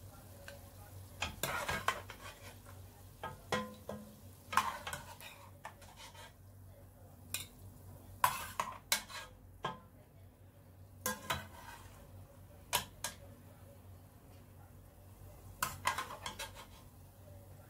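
Metal ladle scraping and clinking against the side and bottom of an aluminium pot in irregular clusters as cooked beef chunks are scooped out, over faint sizzling of the hot juices and a low steady hum.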